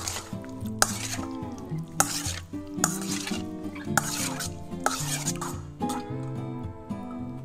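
Metal spoon stirring and scraping salmon cubes in marinade around a stainless steel mixing bowl, with a stroke about every second. Acoustic guitar background music plays underneath.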